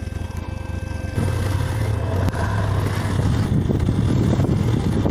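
Steady low rumble of a vehicle on the move, with rough wind-like noise on the microphone; it gets louder about a second in.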